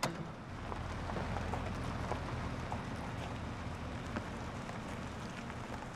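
Sedan creeping along at walking pace: a steady low engine hum, with tyres crackling faintly over road grit in scattered small ticks. There is a sharp click right at the start.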